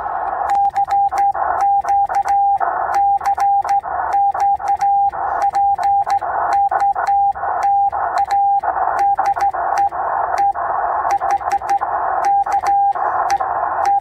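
Morse code sent by hand on a straight key: the Yaesu FT-891's steady single-pitch CW tone keyed on and off in dots and dashes, over the receiver's band of hiss, with a sharp click at many of the key strokes.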